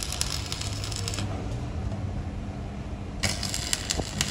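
Electric arc welding crackling and sizzling in two short bursts, the first stopping about a second in and the second starting about three seconds in: tack welds being struck on a car exhaust silencer's steel parts.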